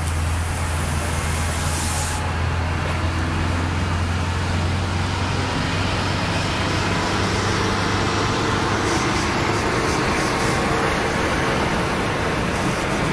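Steady outdoor road traffic noise, with a low engine hum that is strongest for the first several seconds and then fades into the general rumble.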